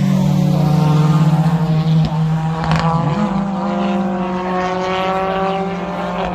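Rally car engine running hard on a steady note, its pitch stepping up briefly about three seconds in.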